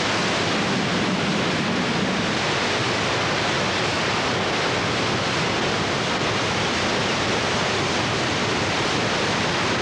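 Victoria Falls: the Zambezi's water pouring over the falls into the gorge, a steady, loud rush of falling water.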